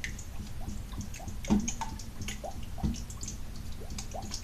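A glue, water and food-colouring mixture being stirred in a bowl: many small wet clicks and squelches, with a couple of low knocks about a second and a half and three seconds in.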